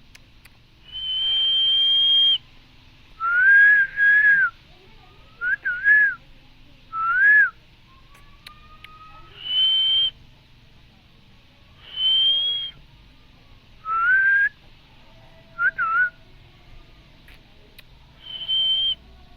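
Green parrot giving a string of whistles: long, level high whistles alternating with shorter, lower ones that rise and fall, about nine calls a second or two apart.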